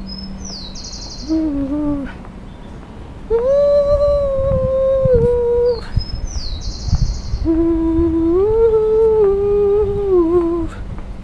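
A person humming a slow tune in long held notes that step up and down in pitch. A short high twittering sound comes twice, about six seconds apart.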